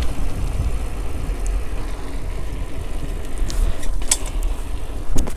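Wind buffeting the rider's camera microphone as a mountain bike rolls fast downhill on wet asphalt: a steady low rumble with tyre noise, broken by a few brief sharp rattles in the second half.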